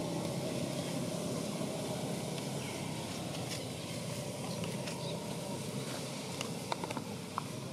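Steady low outdoor background rumble, with a few faint sharp clicks near the end.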